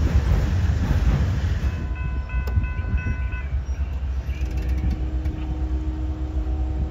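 Freight cars rumbling past with a low roar, then a diesel locomotive horn sounds twice: a short higher chord about two seconds in, and a longer, lower chord from about four and a half seconds on as the locomotives approach.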